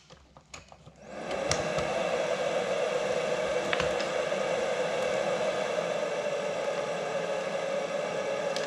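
A Philips DreamStation CPAP machine's blower starts up about a second in and then runs steadily, with air rushing through its hose and mask. A few light clicks come from the hose being handled.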